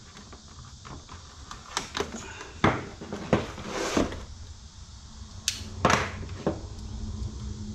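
Handling noises from unboxing: a cardboard box and packaging being moved and tools set down and picked up on a wooden table, giving scattered clicks and knocks about a second apart. There is one brief high scrape a little past halfway.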